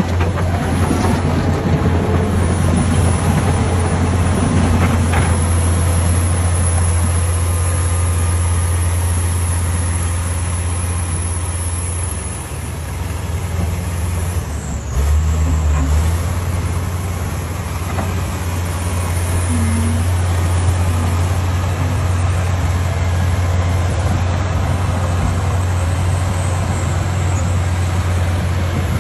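Bulldozer's heavy diesel engine running steadily with a deep drone, easing briefly about twelve seconds in before picking up again.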